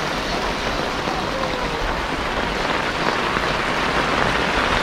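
Fairly heavy rain falling steadily on the road and the shelter roof overhead: an even, dense hiss with no let-up.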